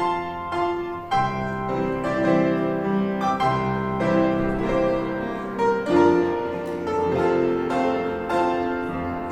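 Piano playing a postlude: chords and a melody with notes changing every fraction of a second, at the close of a church service.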